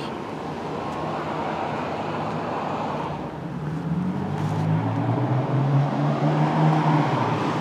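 Two Trane XB13 5-ton heat pump outdoor units running: a steady whoosh of the condenser fans over compressor hum, the compressors thought to be scrolls. A low droning hum swells in about three seconds in and fades near the end.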